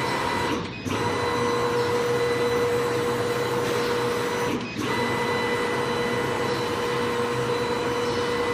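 CNC laser engraving and cutting machine running: a steady whirring noise with a constant whine over it, dipping briefly about every four seconds.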